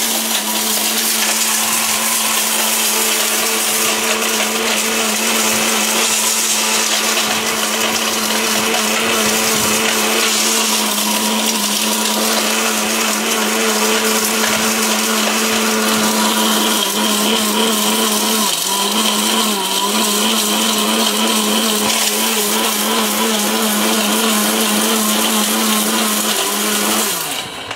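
1600-watt electric blender with a stainless steel jar running at a steady speed, grinding turmeric. Its pitch dips briefly twice about two-thirds through, and it is switched off shortly before the end.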